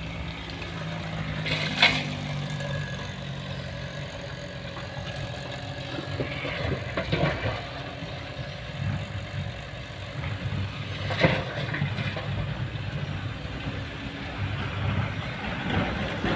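Diesel engine of a hydraulic excavator and dump truck running steadily while coal is loaded into a six-wheel dump truck. The excavator tips a bucket of coal into the steel dump body twice, about nine seconds apart, each time with a sharp clattering impact.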